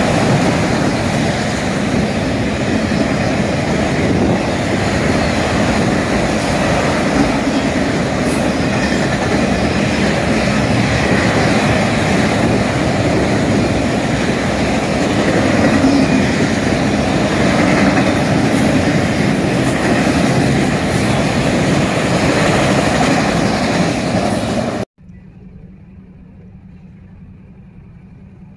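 A freight train of autorack cars rolling past at close range: a loud, steady rumble of steel wheels on the rails. About 25 seconds in it cuts off abruptly, giving way to a much quieter steady hum.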